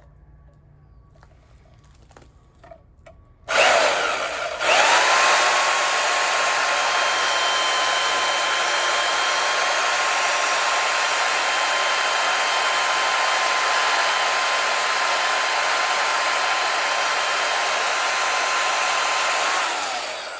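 Electric power tool motor starting about three and a half seconds in after a few faint clicks, stopping briefly and starting again, then running steadily with a high whine and winding down with a falling pitch near the end.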